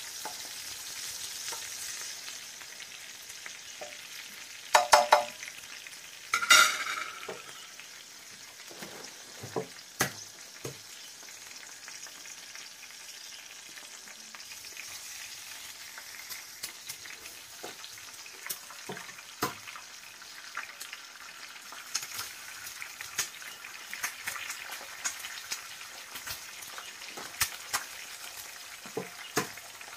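Chapli kebabs and eggs frying in hot oil on a large flat tawa griddle: a steady sizzle with scattered small clicks and scrapes, and two louder bursts about five and six and a half seconds in.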